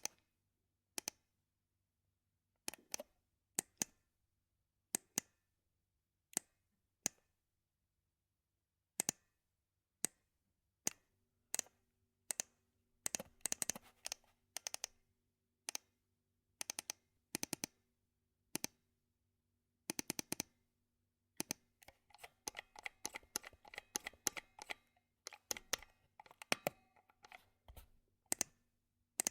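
Computer mouse buttons clicking: single clicks and quick double-clicks about a second apart, then fast runs of rapid clicking near the middle and over most of the last several seconds.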